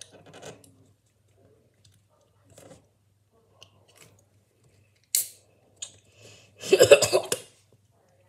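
Quiet sipping from a can of grape drink, then a sharp breath out about five seconds in and a loud cough lasting just under a second near the end.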